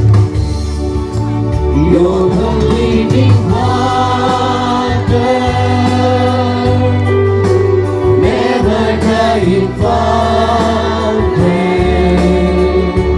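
Christian worship music: a group of singers with a steady instrumental accompaniment underneath.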